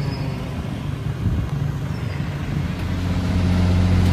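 A motor engine running steadily, its hum growing louder near the end.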